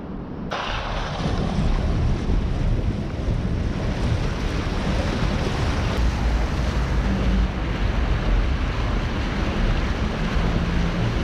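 Fountain jets splashing down into a stone basin: a steady rushing hiss that starts abruptly about half a second in, with wind buffeting the microphone.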